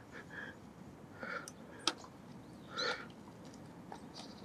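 Quiet outdoor ambience with a few short, faint chirps and one sharp click about two seconds in.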